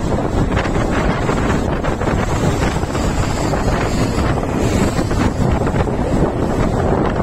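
Heavy, steady wind buffeting the microphone of a phone filming from a moving motorcycle.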